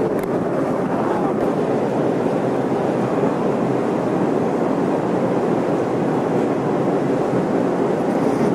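Steady rushing of wind across the camcorder microphone on a moving ship's deck, mixed with the wash of the sea.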